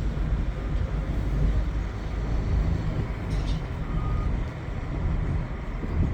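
Steady low rumble of a car driving, heard from inside the moving vehicle, with a short faint beep about four seconds in.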